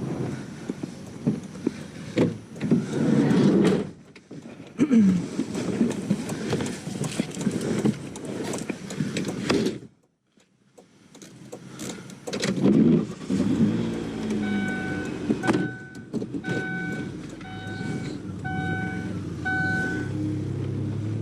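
Knocking and rustling of items being handled, then, after a short break, a minivan's warning chime beeping six times about a second apart over the low hum of the running engine.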